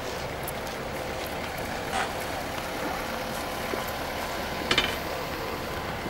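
A motor vehicle engine running steadily with a low rumble, with a couple of brief faint noises in between.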